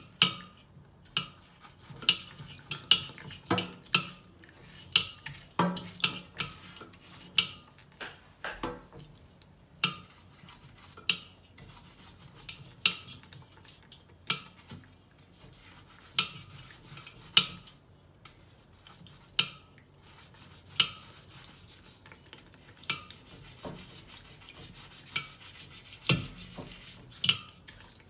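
Stiff brush scrubbing a live crab's shell in a stainless-steel bowl of water, with rubbing and irregular sharp clacks and knocks of shell and brush against the metal bowl, about one a second.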